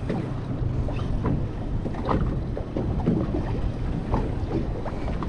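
Wind buffeting the microphone over open sea, with water slapping against a boat's hull in a few short splashes.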